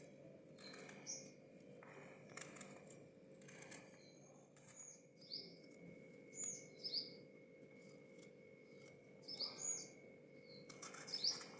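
Faint, irregular knife cuts through vegetables, with birds chirping now and then in short, high, falling calls.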